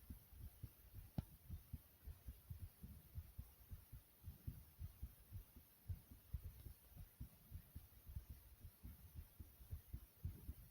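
A person's heartbeat, fast yet soft: a quiet, rapid run of low thumps, several a second. A single sharp click comes about a second in.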